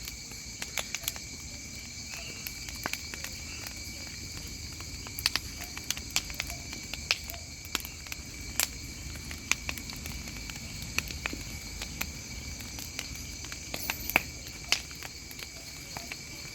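Crickets and other insects chirring in a steady chorus, with irregular sharp crackles and pops from a burning wood bonfire.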